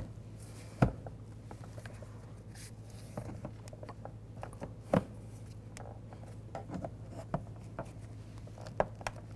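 Plastic trim tools working under a door trim cover: scattered clicks and taps of tool on plastic, the sharpest about a second in, midway and near the end, over a low steady hum.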